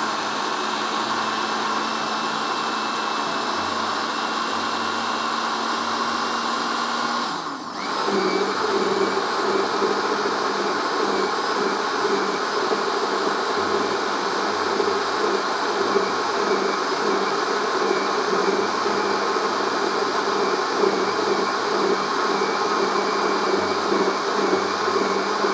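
Countertop blender motor running steadily, puréeing beetroot, boiled potato and white sauce into a smooth soup. About seven seconds in the sound dips for a moment, then the motor runs on at a slightly lower pitch.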